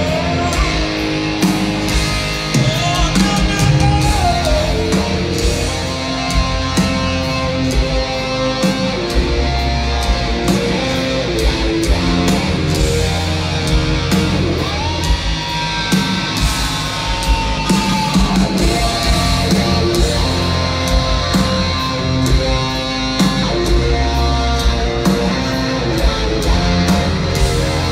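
Live heavy rock band playing at full volume: distorted electric guitars, bass and drums with a steady beat, recorded from within the audience.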